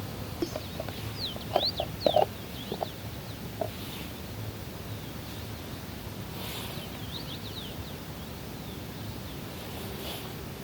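Birds calling in quick, high chirps in two bouts, one about a second in and another about seven seconds in, over a steady outdoor background. A few short, louder low clucks or knocks sound alongside the first bout.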